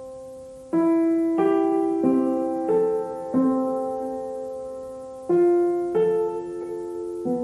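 Slow instrumental background music on piano: soft notes and chords struck about every two-thirds of a second, each ringing and fading, with one chord held longer about halfway through.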